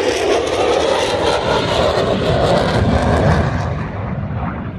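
Military fighter jet flying past low, its engine noise loud and rushing, then fading away over the last second or so as it recedes.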